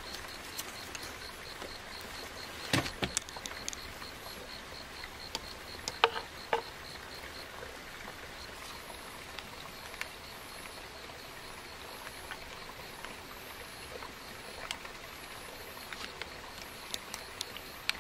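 Insects chirping steadily in a faint, even pulse a few times a second, with scattered sharp clicks and light knocks from handling a small electric rice cooker and a retort pouch of curry; the loudest click comes about six seconds in.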